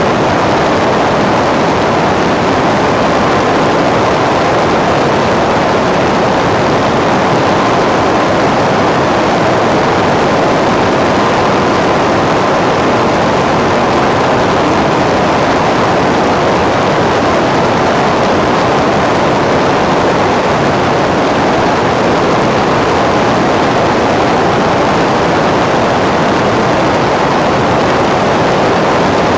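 A loud, steady, unchanging rushing noise with a faint steady whine in it, holding without a break throughout.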